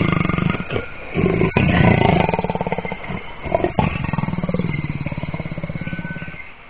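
A male leopard growling, a low, rapidly pulsing growl that dies away near the end, with a couple of sharp knocks on the way.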